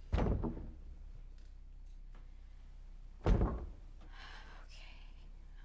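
Two heavy thuds about three seconds apart as a sleepwalking girl's head knocks against the front of a wooden wardrobe, each with a short ringing tail. A faint breathy hiss falls between them.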